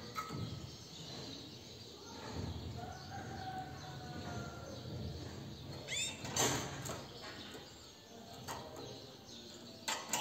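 Canary giving short chirps, the loudest a quick run of rising notes about six seconds in, with wing flutters and a few sharp clicks from hops in its wire cage.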